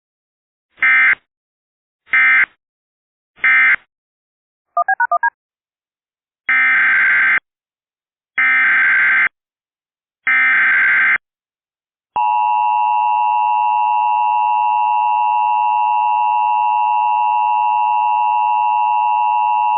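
Emergency Alert System tones. Three short SAME data bursts, the end-of-message code of the previous alert, are followed by a brief warbling blip and then three longer SAME header bursts that open the next alert. From about twelve seconds in comes the steady two-tone EAS attention signal.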